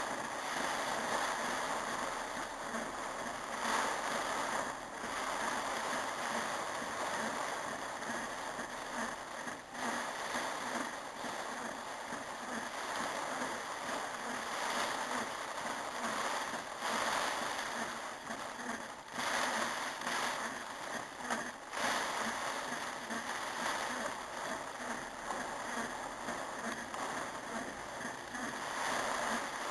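Heavy storm rain pouring down: a steady, dense rush of water that swells and eases a little.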